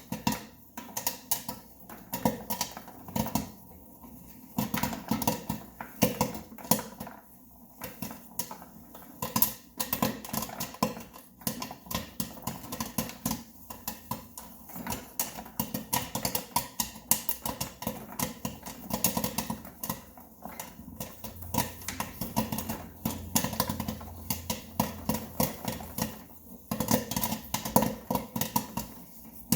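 Popcorn kernels popping in an electric popcorn maker: many sharp, irregular pops, some in quick clusters, over the machine's steady low hum.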